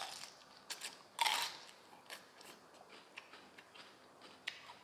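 Crisp crunching as a raw baby bitter gourd is bitten into and chewed, the loudest crunch about a second in, then fainter crunches every half second or so.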